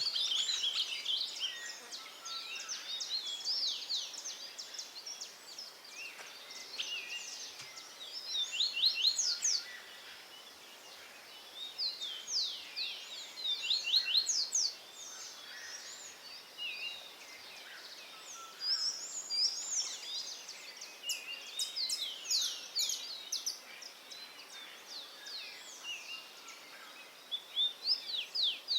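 Songbirds singing: phrases of quick, high chirps and sweeping notes in bursts, several seconds apart, over faint outdoor background noise.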